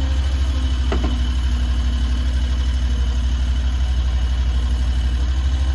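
Mini stand-on skid steer's 739cc engine running steadily at an even, low-pitched drone, with a single short click about a second in.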